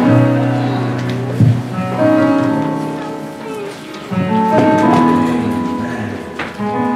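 Church keyboard music playing sustained chords over low bass notes, the chords changing about every two seconds.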